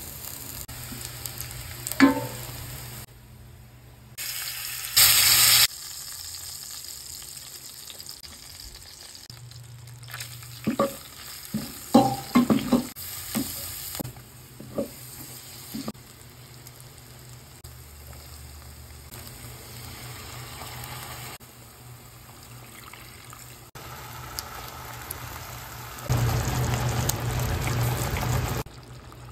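Food frying and sizzling in a stainless steel pot, with a spoon stirring and knocking against the pot a few times. The sound changes abruptly every few seconds, with a louder stretch of sizzle near the end.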